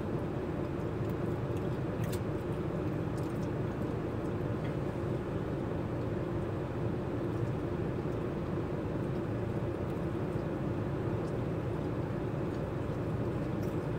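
Steady low engine hum heard inside a vehicle's cab, with the engine idling, and a few faint clicks.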